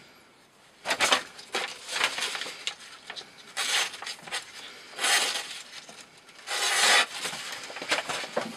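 A steel knife blade making about five short scraping strokes, roughly a second or more apart.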